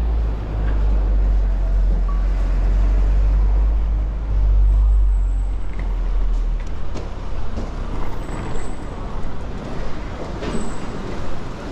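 Street traffic: a heavy road vehicle's deep engine rumble that stops abruptly about seven seconds in, over the steady noise of a busy street.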